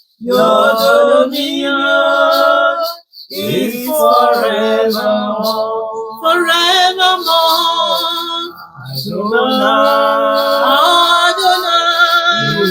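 A voice singing a worship song in about four long, drawn-out phrases, with slides and vibrato in the pitch.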